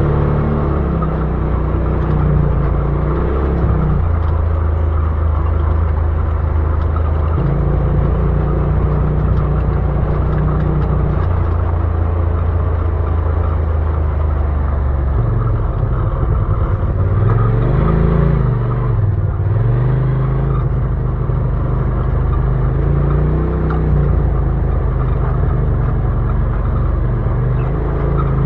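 Side-by-side UTV engine running steadily while driving off-road, its pitch shifting in steps and rising and falling a couple of times about two-thirds of the way through.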